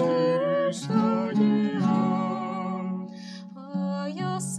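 A woman singing a folk melody with a plucked lute accompanying her; her voice drops out briefly about three seconds in, leaving the lute, then comes back for the next phrase.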